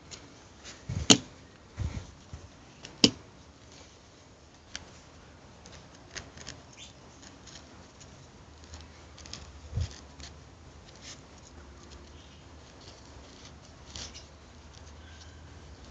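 Handling noise from a flashlight and a homemade sheath with webbing straps: rustling and small taps, with two sharp clicks about a second and three seconds in and a soft thump near ten seconds.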